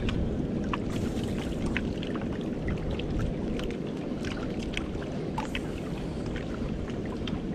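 Steady rumble of wind and small waves lapping against the boulders of the shore, with scattered light clicks and ticks.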